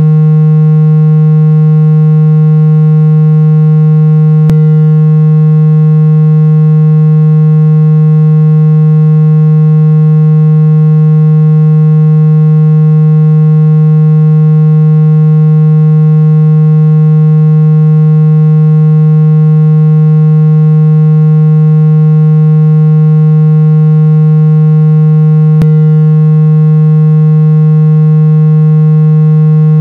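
Synthesized water-eject tone for shaking water out of a phone speaker: a loud, low, buzzy hum held at one steady pitch with many overtones. A faint click sounds about four and a half seconds in and again near the end.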